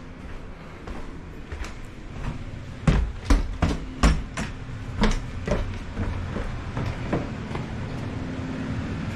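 Footsteps knocking down stairs, about seven heavy steps a third to half a second apart, over the steady hum of a running gas furnace.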